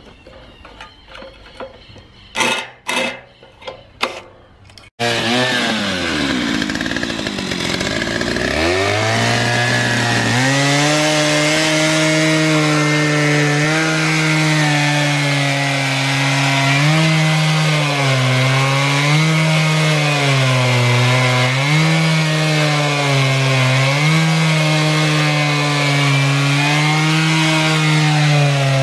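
About five seconds in, a chainsaw on a portable chainsaw mill comes in loud; its engine note falls and then climbs back to full speed. From about ten seconds in it runs flat out ripping a log lengthwise, the note dipping and recovering about every two seconds as the chain bites into the wood.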